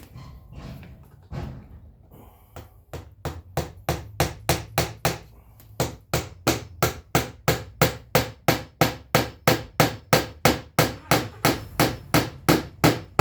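A hammer tapping small nails, a steady run of quick light blows about three a second. The blows start softly about three seconds in and grow firmer.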